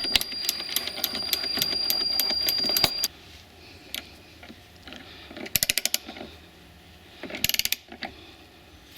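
Ratchet wrench with a Torx T50 socket clicking as the bolts of a new door latch striker are run in. A dense run of fast clicks lasts about three seconds, followed by two short bursts of clicks later on.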